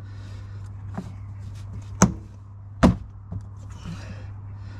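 Plastic access cover on a BMW E61's engine undertray being pushed back up and clipped shut: a few small knocks, then two sharp clicks a little under a second apart, over a steady low hum.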